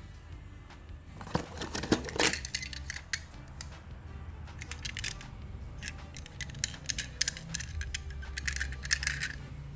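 Small die-cast metal toy cars clicking and clattering against one another and the cardboard box as one is picked out and handled, with a cluster of sharper knocks about one to two seconds in.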